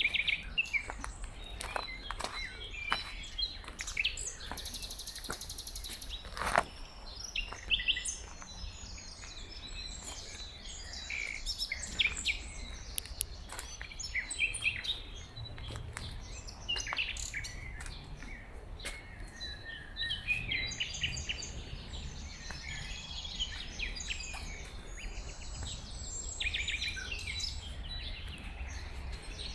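Several songbirds singing and chirping, with short phrases overlapping throughout, over a steady low background rumble and occasional sharp clicks.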